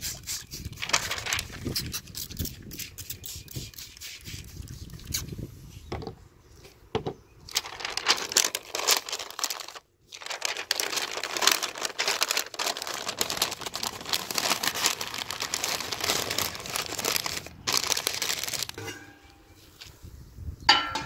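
Pink butcher paper crinkling and rustling as it is folded tightly around a smoked pork butt, after a quick run of spritzes from a trigger spray bottle in about the first second.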